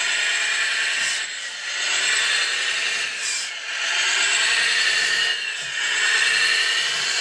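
Simulated engine sound from a Servonaut SM3 sound module in a radio-controlled Bruder Volvo A60H dump truck model, revving up and down as the model drives and turns, mixed with the whir of its electric drive.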